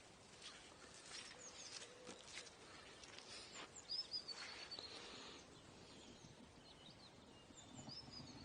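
Near silence: faint open-air background with a few short, high bird chirps scattered through, the clearest about four seconds in.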